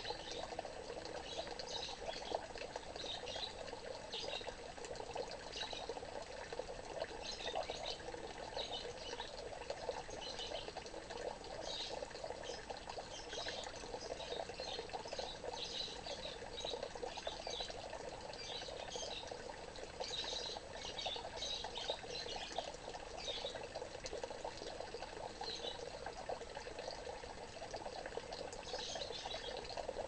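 Water pouring and trickling steadily into a small fish pond, a continuous splashing.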